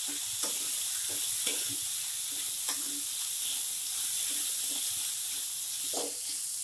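Boiled green peas frying in oil with onion and garlic in a pan, sizzling steadily, while a metal spatula scrapes through and presses them, about two strokes a second.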